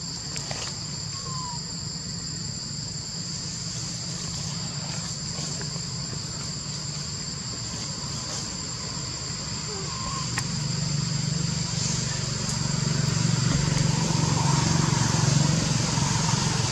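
Steady, high-pitched insect chorus droning on two unbroken tones. A low rumble comes up about ten seconds in and grows louder.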